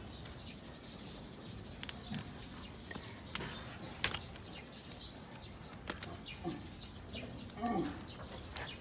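Hoof nippers snipping through a donkey's overgrown hoof wall: a series of sharp snaps, the loudest about four seconds in.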